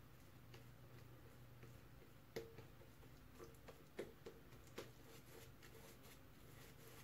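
Faint brushing and squishing of a silvertip shaving brush working lather on a face, with a few soft clicks about halfway through.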